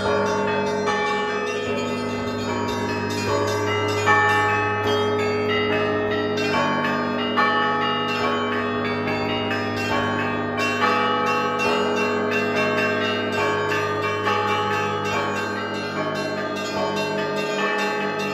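Orthodox monastery bells ringing a full peal: small bells chiming in quick succession over the steady hum of a large bell, with a heavier stroke every few seconds.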